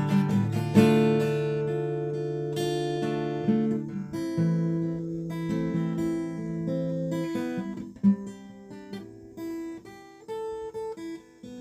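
Acoustic guitar strumming slow chords and letting each ring out, with a few lighter single notes near the end. Instrumental worship music, no singing.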